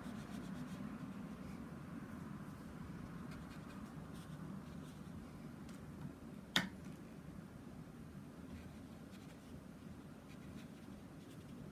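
Faint strokes of a watercolour brush on paper over a low steady hum, with one sharp click about six and a half seconds in.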